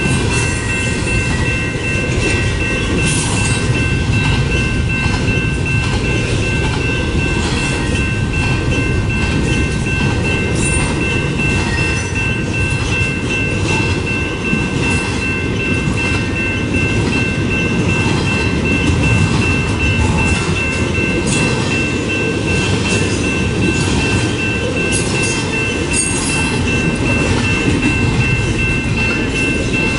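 Double-stack intermodal freight train's loaded well cars rolling past at close range: a steady low rumble of wheels on rail with scattered clacks, and a thin steady high-pitched whine over it.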